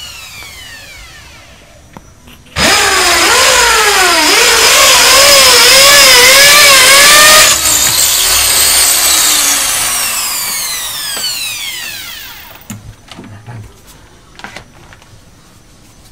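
Electric drill boring into a wall: a couple of seconds in it starts at full speed, its motor pitch wavering under load for about five seconds, then the trigger is released and it winds down in a long falling whine. It opens with the fading whine of an earlier spin-down.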